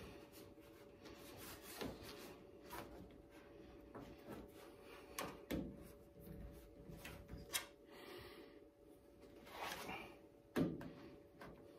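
Scattered knocks, clicks and rubbing as rubber roof rail weatherstripping is pushed and worked into the roof rail channel of a car by hand. The strongest knock comes near the end.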